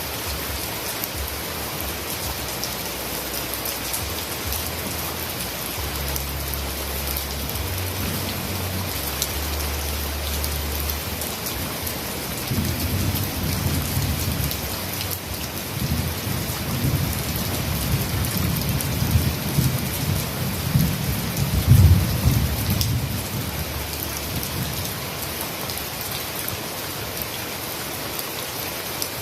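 Steady heavy rain hissing down, with a low rolling rumble of distant thunder. The rumble starts about a fifth of the way in, is loudest about three-quarters through, then dies away under the rain.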